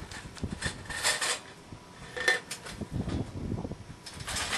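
Wire cage live trap rattling and clinking in short irregular bursts, with a louder clatter near the end.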